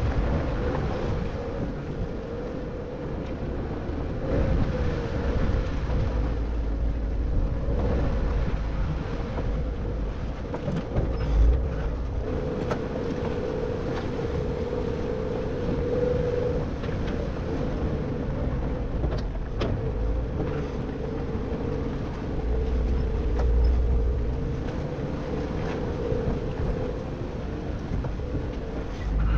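Jeep engine running steadily at low speed while crawling the trail, a constant hum under rumbling noise. Low gusts of wind buffet the microphone at times.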